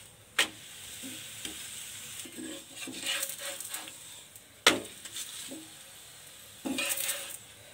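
Aloo paratha sizzling on a hot tawa while a steel spatula flips and scrapes it, with two sharp knocks of the spatula on the pan, about half a second in and near five seconds in.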